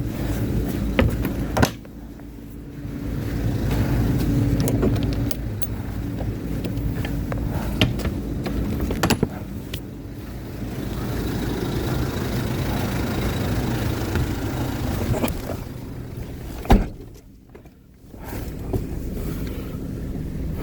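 A vehicle's engine running with a steady low rumble, with scattered clicks and knocks over it. A single loud thump comes about 17 seconds in, followed by a short lull before the rumble returns.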